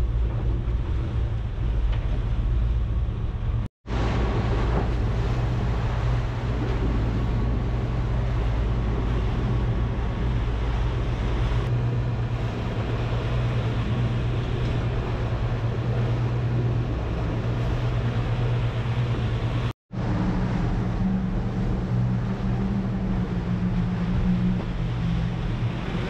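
Wind buffeting the microphone and sea rushing past a sailing catamaran's hulls in rough water, over a steady low hum, cut off briefly twice.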